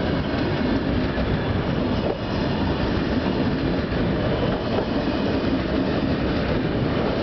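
Russian Railways passenger coaches passing close by at speed: a steady, loud rush of wheels running on the rails.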